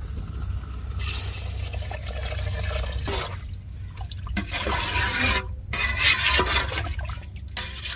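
Water being poured and splashed into a pot of squid simmering in masala, in several pours with short breaks, and the liquid stirred with a perforated steel ladle: the water for cooking the biryani rice.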